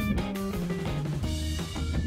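Background music with a drum beat under pitched instrument notes.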